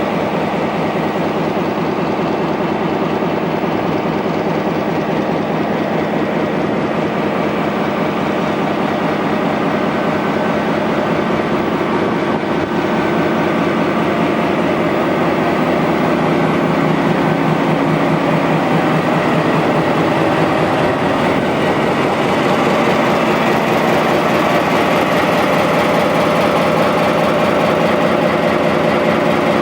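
Diesel locomotive engine running steadily with a dense, rapid throb and several steady tones over it, growing slightly louder about two-thirds of the way through.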